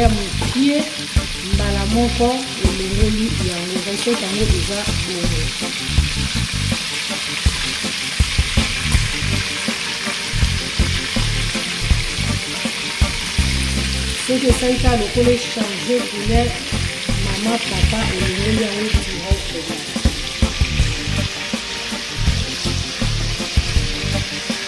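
Pieces of salted fish (makayabu) frying in hot oil in a pan with a steady sizzle, while a spatula scrapes and knocks in the pan as it turns the pieces and lifts them out.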